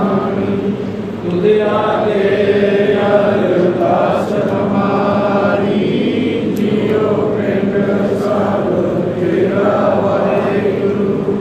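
Sikh kirtan: a male voice chanting a hymn in phrases over a steady harmonium drone.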